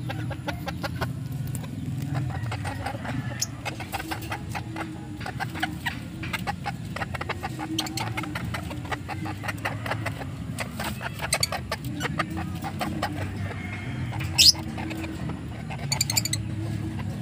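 Bantam chickens clucking in quick runs of short clucks, with one sharp, high squawk about fourteen seconds in.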